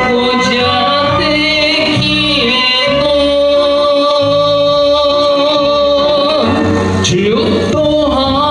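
A singer singing a Japanese song into a microphone over a karaoke backing track with a bass line. In the middle the voice holds one long note with vibrato, then moves on to new phrases near the end.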